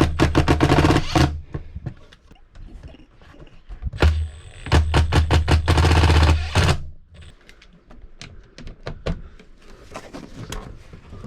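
Cordless impact driver running in two bursts of two to three seconds each, a motor hum under rapid hammering clicks, driving in the mounting bolts. Scattered clicks and taps follow.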